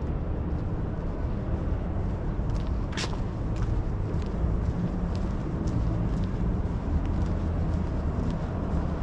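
Downtown street ambience: a steady low rumble of city traffic. Over it, footsteps tick lightly on a concrete sidewalk at walking pace, about two a second, with one sharper click about three seconds in.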